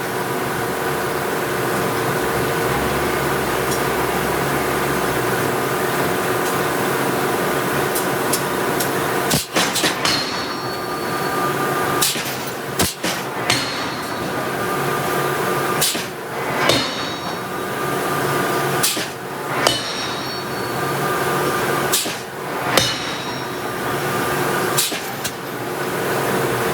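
Heavy blows from a hydraulic forging hammer striking steel, often in quick pairs a couple of seconds apart, some with a short metallic ring. They start about a third of the way in, over a steady hum of shop machinery.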